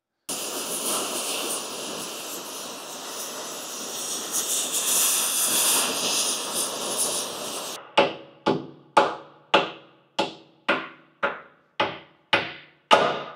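Oxy-fuel cutting torch hissing steadily as it cuts through steel plate, cutting off suddenly about eight seconds in. It is followed by about ten hammer blows on the steel, roughly two a second, each ringing briefly.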